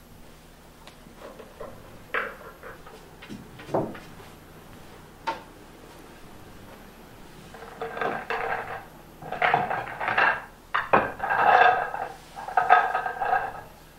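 Pool balls clacking against one another as they are gathered by hand at the foot of the table: a few separate clicks at first, then a dense run of clacking from about eight seconds in.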